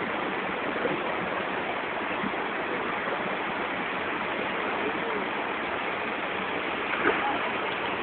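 Waterfall pouring steadily: an even, unbroken rush of falling water.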